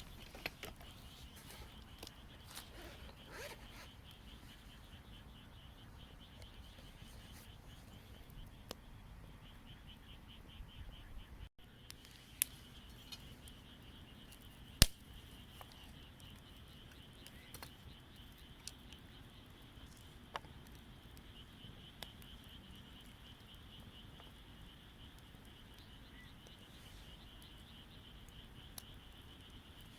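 Campfire burning: scattered sharp crackles and pops from the wood, one louder pop about halfway through. Under it runs a steady, faint, high-pitched pulsing trill.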